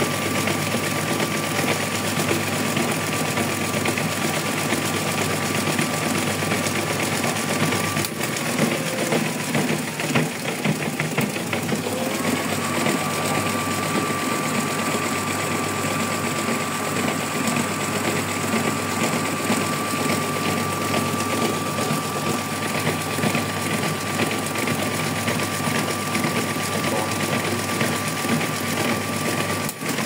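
Brandt washing machine running with a steady motor hum and a thin high whine. The whine cuts out with a click about 8 seconds in and comes back about 4 seconds later.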